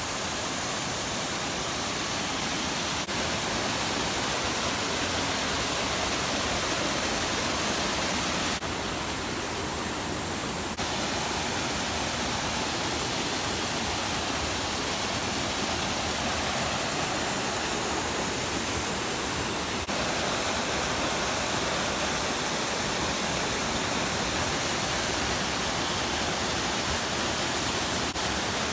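Waterfall: a steady, even rush of falling water, its level and tone shifting slightly at several abrupt cuts, most noticeably for about two seconds near a third of the way in.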